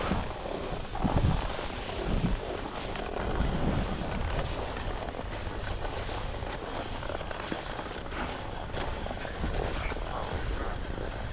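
Skis side-slipping down a ski race course: a steady scraping hiss of edges on snow, with wind buffeting the microphone in low rumbles that swell a few times in the first couple of seconds.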